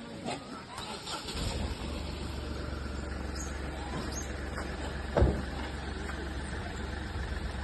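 A car engine starts about a second and a half in and then idles with a steady low rumble. A single thump about five seconds in.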